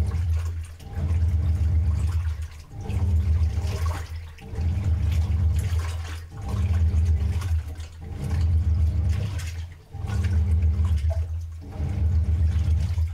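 Washing machine churning: water sloshing and swishing over a low motor hum, in regular swells that rise and fall about every second and a half to two seconds.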